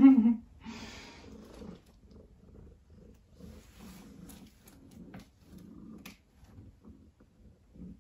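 Domestic cat purring in a steady rise-and-fall rhythm, after one short loud vocal call right at the start. A few faint clicks are heard in the middle.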